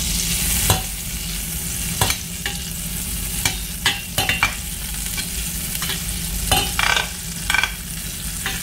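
Butter sizzling as it melts in a hot stainless-steel frying pan, with a metal slotted spatula clicking and scraping against the pan bottom at irregular moments.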